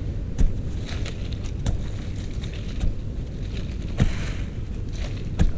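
A hand digging tool striking into termite-nest earth, about six irregularly spaced blows, over a steady low rumble.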